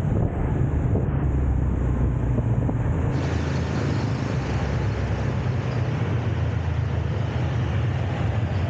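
City street traffic heard while riding through it, with a heavy wind rumble on the microphone; about three seconds in, a brighter hiss comes in over the steady road noise.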